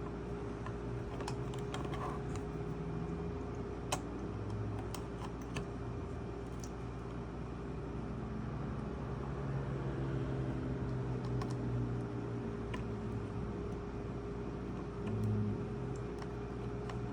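Scattered light clicks and rustling from jumper-wire connectors being pushed onto an OLED display's pins, over a steady background hum.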